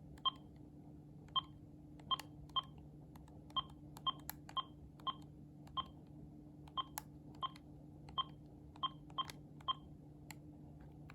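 Cordless phone handset keypad beeping as its buttons are pressed one by one, about fifteen short beeps at an uneven pace with a few plain key clicks among them, while the base ID is keyed in to register the handset to its base.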